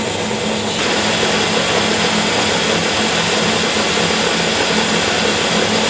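Motor-driven MDF sharpening wheel spinning with a steel knife blade held against it, a steady motor hum under a grinding hiss that grows louder about a second in.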